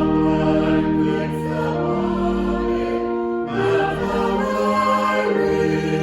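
Choir singing sacred music, with sustained chords that shift about two seconds and again about three and a half seconds in.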